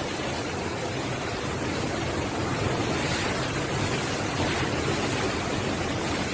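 Hurricane-force wind blowing steadily as an even rushing noise, growing a little louder after about two seconds.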